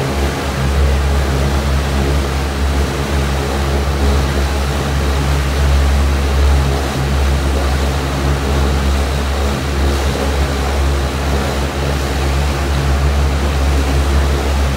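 Rotec R2800 seven-cylinder radial engine running steadily on a test stand during its warm-up run: a deep, even drone with a stack of harmonics that holds the same speed throughout.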